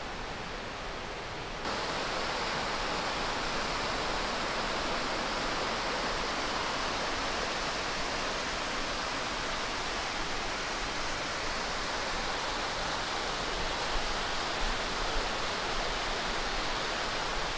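Steady rush of flowing water, a dense even hiss that gets suddenly louder about two seconds in.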